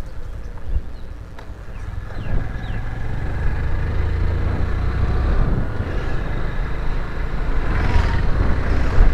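Motorcycle engine running while riding, with wind and road noise on the handlebar microphone. It dips for a moment about a second in, then grows louder again, with a brief louder rush near the end.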